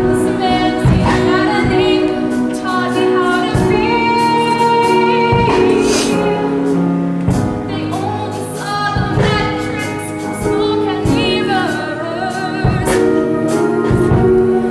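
A female voice singing a musical-theatre song, with vibrato on the held notes, over sustained instrumental accompaniment.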